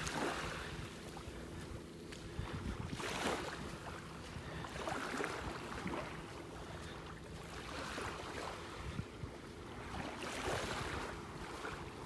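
Small waves lapping on a calm beach, the wash swelling and fading every couple of seconds, with wind rumbling on the phone's microphone.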